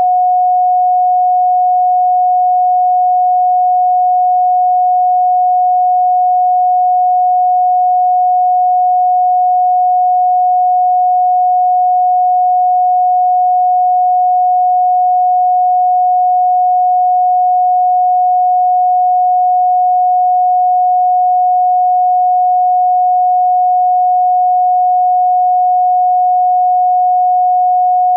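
A steady, electronically generated pure sine tone at about 728 Hz. It holds one unchanging pitch at a constant loudness, with no pulsing and no overtones.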